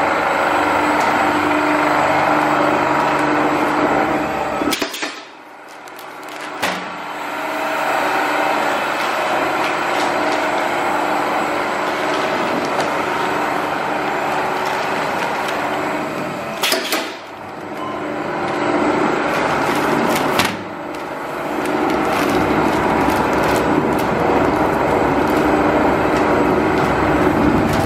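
Sugar paste slicing machine running with a steady motor hum. The hum dips briefly about five seconds in and again at about seventeen and twenty seconds, each dip and restart marked by a sharp click.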